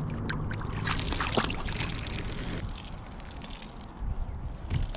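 Water splashing and trickling as a small hooked trout is brought up at the side of a kayak and lifted out of the lake, with scattered sharp clicks and knocks.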